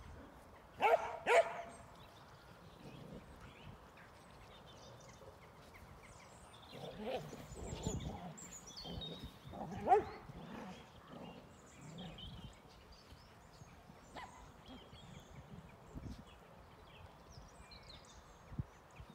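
Dogs barking and yelping in play: two sharp barks about a second in, more barks around the middle, and the loudest bark near ten seconds.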